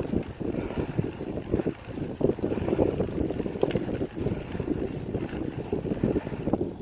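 Wind buffeting the microphone of a camera riding on a moving recumbent bike, an uneven low rushing rumble.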